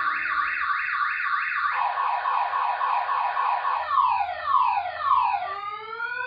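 Car alarm cycling through its tones: a fast repeating rising chirp, about three a second, changes about four seconds in to slower falling wails, then to a long rising whoop near the end.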